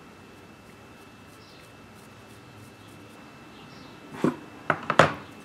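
Light scraping of a carving knife on wood over a steady faint hum. About four seconds in comes a quick run of four short, sharp sounds, the last the loudest.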